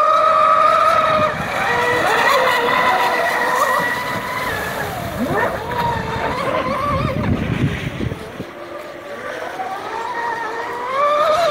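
Two Fine Design Marine Snack Attack catamarans, large radio-controlled boats on 12S electric power, racing with a steady motor whine. The pitch falls sharply as one passes close by about five or six seconds in, and it rises again near the end.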